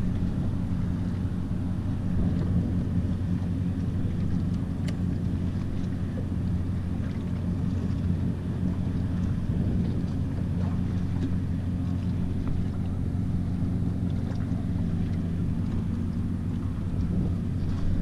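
Boat engine running steadily at idle: a low, even hum that does not change.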